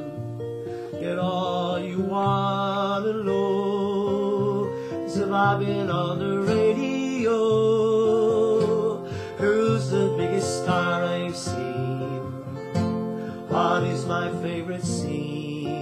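Acoustic guitar strummed in an instrumental break, with a harmonica in a neck rack playing held, wavering notes and chords over it.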